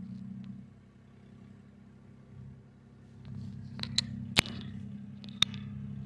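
Tractor engine running steadily at a low pitch, dropping back after about a second and coming up louder again about three seconds in. A few sharp clicks, the loudest sounds, come near the end.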